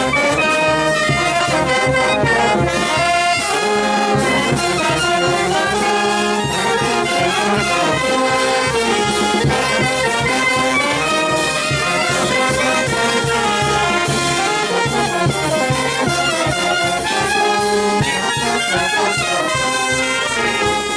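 Brass band playing a tune, with brass melody over a steady percussion beat.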